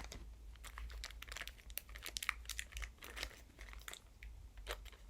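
Packaging being handled, crinkling and crackling in irregular small clicks, over a faint steady low hum.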